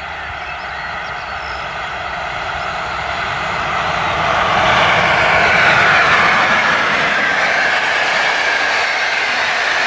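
A locomotive-hauled passenger train with PKP Intercity coaches approaches and passes at speed. Its wheel-on-rail running noise grows steadily louder, peaks about five seconds in, and stays loud as the coaches roll by.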